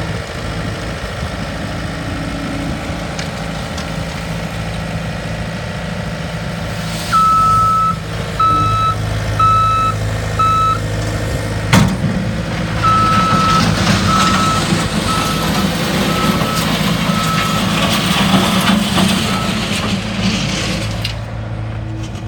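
Bobcat S220 skid steer's diesel engine running, with its backup alarm beeping about once a second while the machine reverses: first a longer beep then three short ones about a third of the way in, and again from just past halfway as the engine works harder. A single sharp knock comes between the two runs of beeps.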